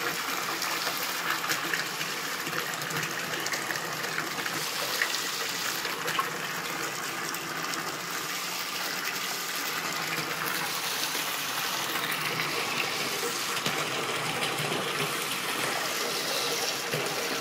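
Bathtub spout running steadily, its stream pouring and splashing into a partly filled tub and over a small child's hands.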